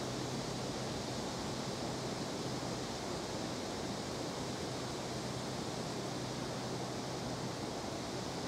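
Steady outdoor background noise: an even rushing hiss with a faint low hum underneath and no distinct events.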